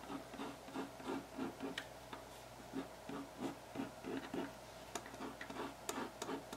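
Pen scratching on cardboard in short, faint, irregular strokes as it traces a circle around a bottle cap.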